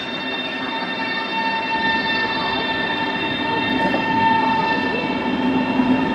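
PKP Intercity Pendolino (ED250) electric train moving past along the platform, a steady whine of several high tones over the continuous rumble of its wheels and carriages.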